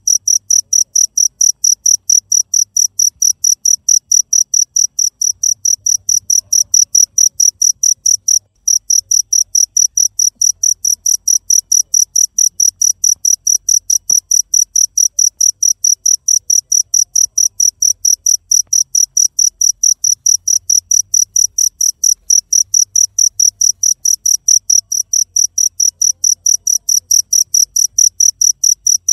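A cricket chirping steadily: a fast, even run of short, high-pitched chirps, several a second, with a brief pause about eight and a half seconds in.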